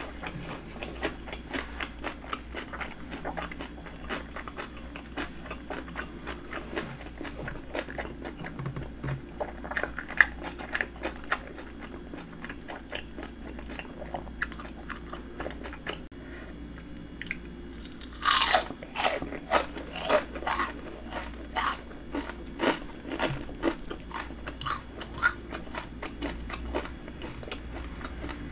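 A person chewing a full mouthful of food, with many small crisp crunches. About two-thirds of the way through comes a run of louder, sharp crunches.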